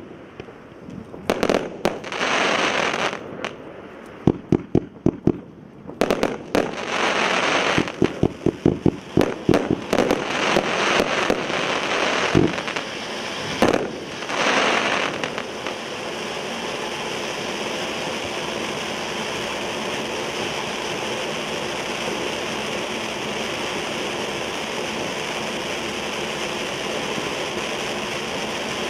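Ground fountain firework (SLK Fireworks FBH02 'Wedding Fountain') spraying sparks. It starts in fits of hissing broken by many sharp crackling pops, and about halfway through it settles into a steady hiss.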